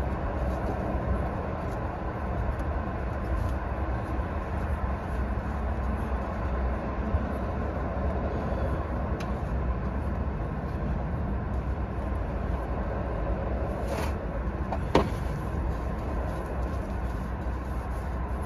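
Steady low mechanical hum with a constant background wash, broken by a few faint clicks.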